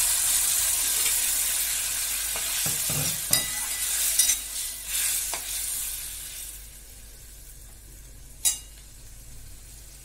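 Water poured into a hot stainless steel kadai of potatoes and onions frying in mustard oil sizzles loudly while a metal spatula stirs and clinks against the pan. The sizzle dies down about six and a half seconds in, and a single sharp metal clink comes near the end.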